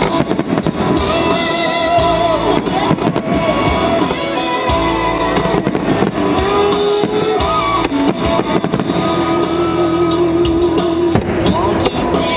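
Aerial fireworks shells bursting in a run of sharp bangs and crackles, heard over music with long held notes. The bangs come thickest at the start, a few seconds in, and again near the end.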